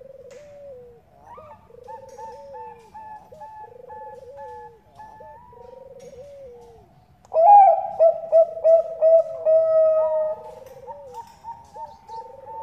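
Zebra doves (perkutut) cooing in repeated rolling phrases, with a softer series first and a much louder bout starting about seven seconds in.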